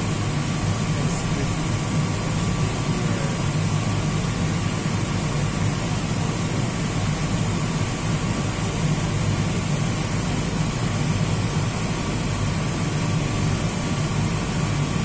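Steady low hum and air rush inside an enclosed Ferris wheel gondola as it rides down, with a faint steady high tone running through it.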